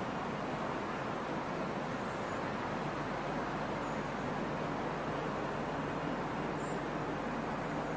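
Steady outdoor background noise, an even hiss with no distinct events, with a few faint short high chirps scattered through it.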